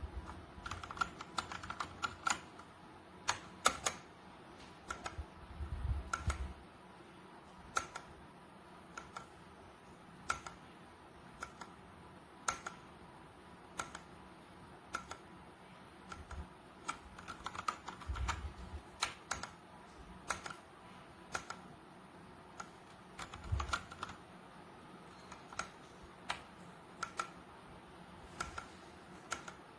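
Typing on a Redragon K617 60% mechanical keyboard: irregular key clicks, sometimes in quick runs and sometimes spaced out, with a few heavier low thuds among them.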